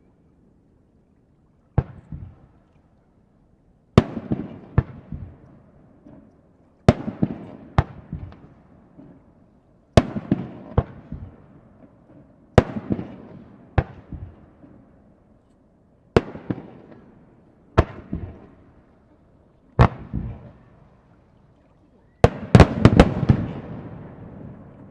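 Aerial fireworks shells bursting with sharp bangs, often in pairs every two or three seconds, each trailing off in a rumble. Near the end several bangs come in quick succession.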